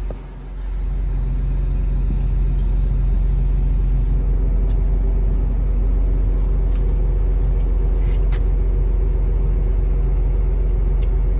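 Excavator's diesel engine running steadily, a low rumble with a constant hum. It dips briefly at the very start before settling.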